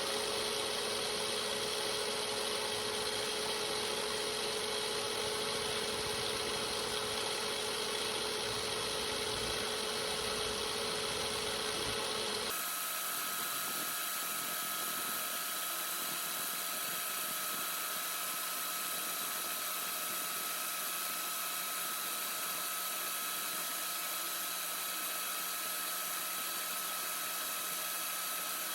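Milling machine's vertical spindle running at a steady speed with a continuous whine. About twelve seconds in the sound changes suddenly: the low rumble drops away and a higher steady whine takes over.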